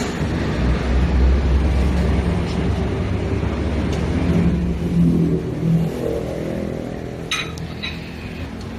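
Road traffic: a motor vehicle's engine running with a low rumble and pulling away, with two short clicks near the end.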